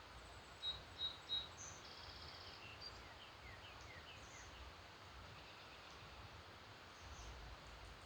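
Wild birds singing: three short, loud, high notes in quick succession about a second in, then a brief trill and a run of short down-slurred notes from another bird, over a faint steady hiss of background noise.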